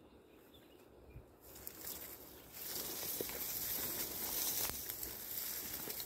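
Dry, ripe grain stalks rustling and swishing as they brush against a person walking through them. The rustling starts about a second and a half in, grows louder a second later and eases off near the end.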